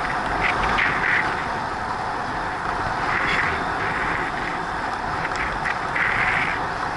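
Wind rushing over an action camera's microphone and bicycle tyres rolling on asphalt at about 36 km/h: a steady rushing noise that swells louder briefly three times.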